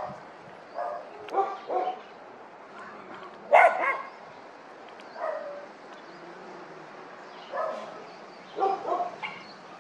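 A dog barking at irregular intervals, about eight short barks, the loudest about three and a half seconds in.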